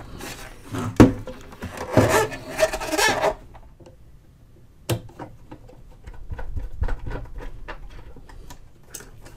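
A plastic radio cabinet being turned over on a wooden bench, knocking and rubbing against the wood. Then a screwdriver puts screws loosely through the cabinet's metal mounting plates, making a run of small clicks and scrapes.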